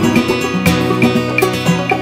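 Background music: a plucked-string tune with a steady beat.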